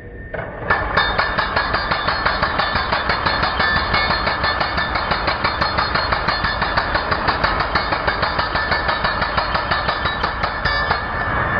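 Ingco 16 kg electric concrete breaker (demolition hammer) running, hammering in a rapid, even stream of blows at about five a second. It starts just under a second in and stops shortly before the end.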